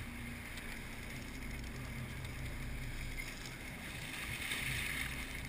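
A 57-foot Bertram sportfishing boat's engines running at a steady low hum, with water rushing and splashing along the hull; the splashing gets louder about four to five seconds in.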